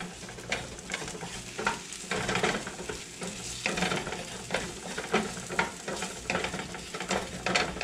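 Sliced dryad's saddle (pheasant-back) mushrooms sizzling in an oiled skillet while being stirred with a spatula: steady frying crackle with irregular sharp pops and scrapes.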